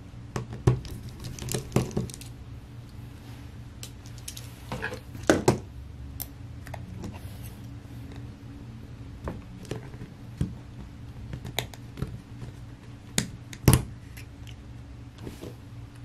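Scattered light clicks and taps of small repair tools, a precision screwdriver and tweezers, against a MacBook Air 2020's case and internals while its USB-C port board is unscrewed and lifted out. A steady low hum runs underneath, and there is one sharper click near the end.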